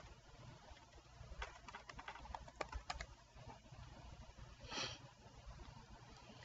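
Faint typing on a computer keyboard: a quick run of keystrokes about one and a half to three seconds in. A short hiss follows near the five-second mark.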